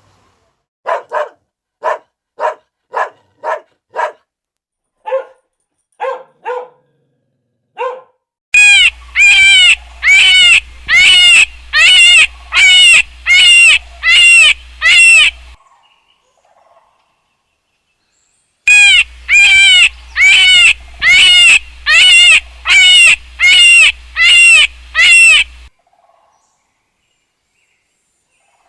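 Animal calls: a run of short, evenly spaced barking calls, then two loud runs of about ten rapidly repeated high calls each, with a pause between the runs.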